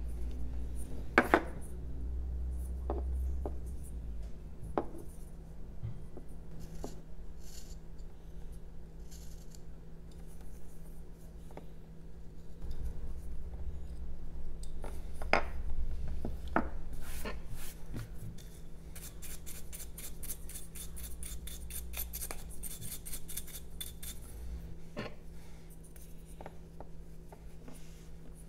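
Hand carving tools cutting jelutong wood: scattered crisp snicks and scrapes of a knife blade paring small chips, with a run of quick fine scratching ticks about two-thirds of the way through.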